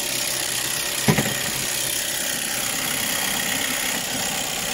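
Audi A6 2.0 TDI four-cylinder diesel engine idling steadily. There is a short knock about a second in.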